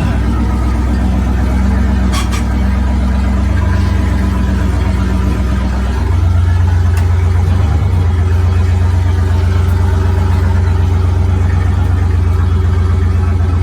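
Chevy 350 small-block V8 in a 1982 C20 pickup running steadily; its note shifts and gets a little louder about six seconds in.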